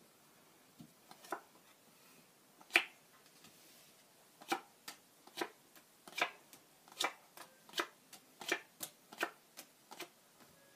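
Playing cards dealt one at a time from the hand onto a close-up mat, each card going down with a sharp click. A few scattered clicks come first, the loudest about three seconds in, then a steady run of about one every 0.7 s.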